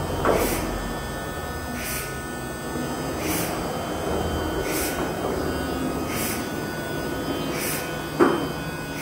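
Thermwood CNC router running, its table and gantry head moving under power: a steady machine hum with a soft hiss repeating about every second and a half. A short sharp clunk with a falling tone comes just after the start and again, louder, about 8 seconds in.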